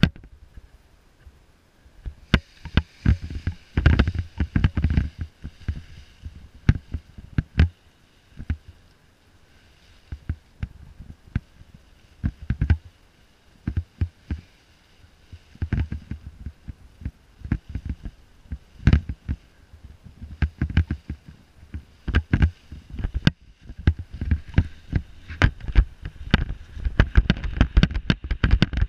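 Wind buffeting the pilot's camera microphone: a low rumble broken by irregular sharp knocks and pops that come in gusty clusters and grow denser near the end.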